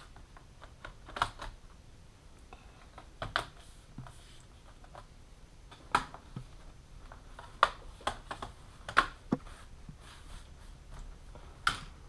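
Irregular sharp clicks and taps of small plastic and metal parts and a screwdriver being handled while a Sony Vaio laptop's underside is put back together.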